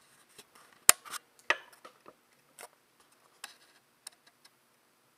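Camera handling: a string of sharp clicks and light taps while the camera is zoomed and refocused, the loudest click about a second in.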